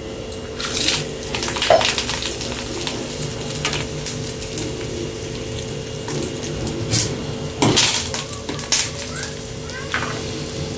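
Hot oil sizzling in a pan of curry leaves and seeds as dried red chillies are dropped in, with several clinks and knocks of utensils against the pan over a steady hum.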